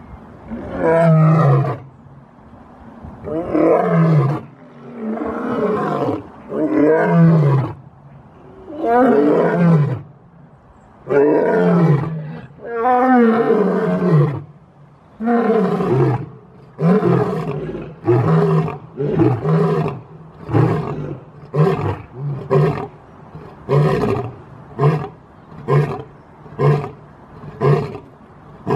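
Male lion roaring a full bout: several long, moaning roars that each fall in pitch, then a run of shorter grunts that come closer and closer together toward the end.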